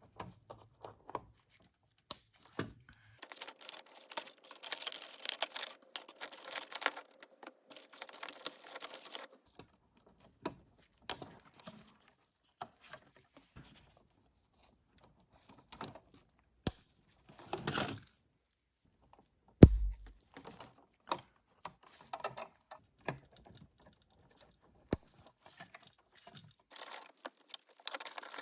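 Hands working electrical wires and Wago lever connectors in a wall switch box: scattered clicks and snaps with stretches of rustling and scraping, and one sharp knock about twenty seconds in.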